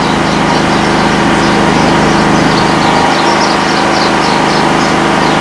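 A steady machine hum like an idling engine: a constant low drone made of several steady tones, with a faint rough hash above it.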